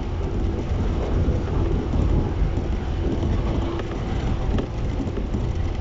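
Steady deep rumble and hum beside a stationary JR East 115 series electric train waiting at the platform, with a faint steady tone that fades in and out.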